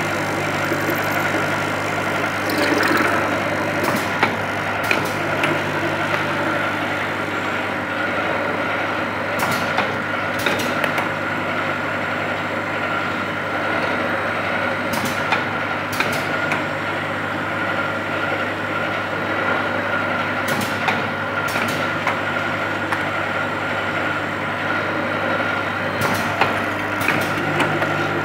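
Fully automatic tapping machine with indexing table and vibrating linear feeder running: a steady electric hum and whine, with sharp metallic clicks in pairs about every five to six seconds as the machine cycles.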